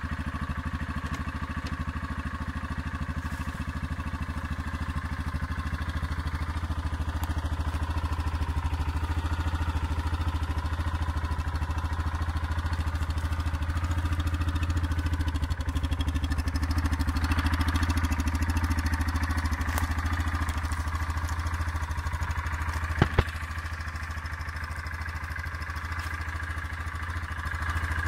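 Yamaha Kodiak 450 quad's single-cylinder four-stroke engine running steadily. Two sharp knocks come a few seconds before the end.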